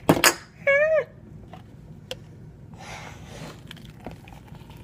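A loud knock as the plastic blender jar is handled, followed at once by a short, high-pitched squeak that dips at the end. A soft rushing hiss follows about three seconds in.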